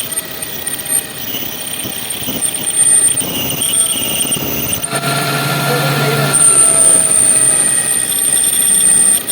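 Metal lathe running and cutting steel, with a steady high-pitched squealing whine that grows stronger about six seconds in.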